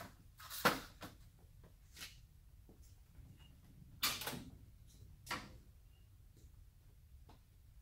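A few short clunks and knocks as the steel cab door of a 1955 Chevy pickup is unlatched and swung open, two of them close together about four to five seconds in. The loudest knock comes about half a second in.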